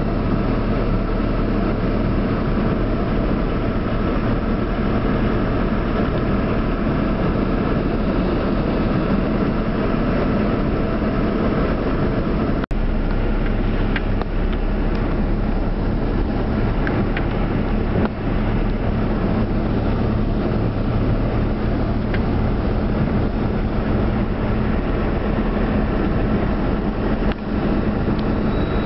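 Car engine running steadily, heard from inside the cabin as the car drives slowly through floodwater, with a few faint clicks along the way.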